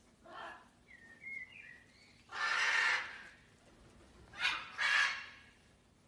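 Blue-and-yellow macaw giving short raspy squawks: one soft one at the start, a thin chirp about a second in, a longer, louder squawk around the middle, and two more close together near the end.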